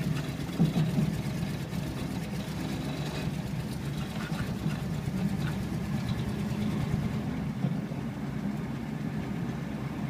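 1959 Ford Thunderbird's V8 running as the car drives slowly, heard from inside the cabin: a steady low engine drone.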